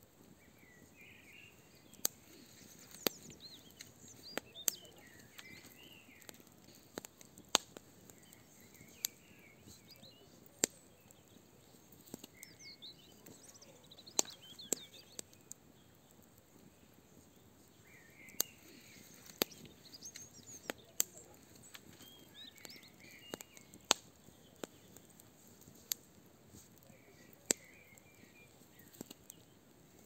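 Wood fire burning in a barbecue grill, crackling with irregular sharp pops over a low hiss, while small birds sing and chirp around it.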